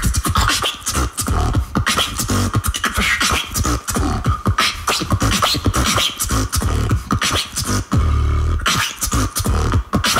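Solo beatboxing: a fast, dense run of mouth-made drum hits over deep bass, with a held bass note about eight seconds in.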